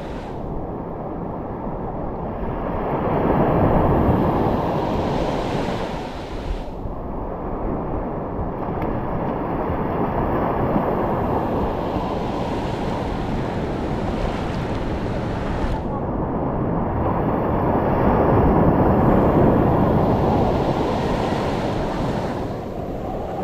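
Surf washing up the sand at the water's edge, with wind buffeting the microphone. The wash swells louder twice, about three seconds in and again around eighteen seconds.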